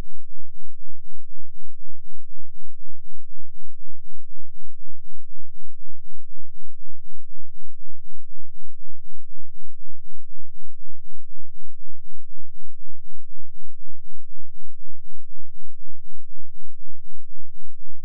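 A 2 Hz sine-wave bass test tone, far below hearing, its loudness pulsing evenly about four times a second, with low rumble from the tone's distortion.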